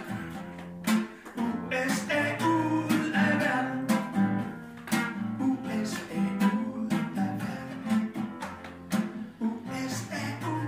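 Classical acoustic guitar strummed in a steady rhythm, with a harmonica on a neck holder playing a melody over it.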